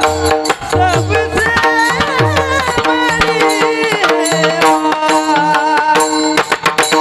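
Instrumental interlude of an Indian devotional song: a melody over tabla drumming, with a run of rapid drum strokes near the end.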